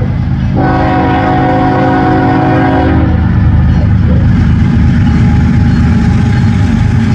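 Diesel locomotives on a BNSF freight train running with a heavy low rumble. The locomotive's multi-note air horn sounds one chord about half a second in and holds it for about two and a half seconds.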